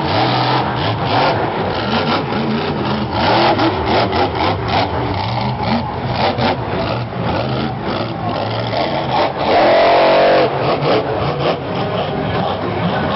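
Monster truck engine revving hard and repeatedly as the truck is driven through a freestyle run, with one loud rising rev about ten seconds in.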